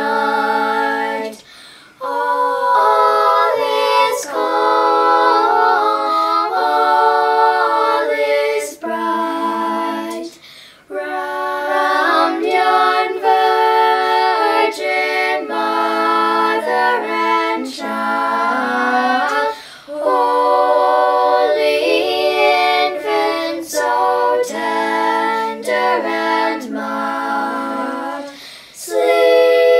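Unaccompanied group singing in close harmony, female voices leading, with no instruments. Long held phrases are broken by brief pauses for breath about every nine seconds.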